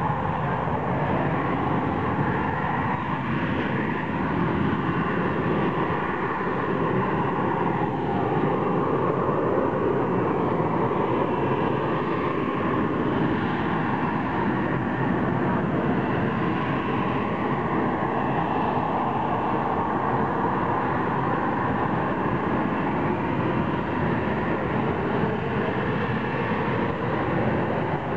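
AV-8B Harrier II's Rolls-Royce Pegasus vectored-thrust turbofan holding the jet in a hover: a steady, loud jet noise with a faint high whine over it.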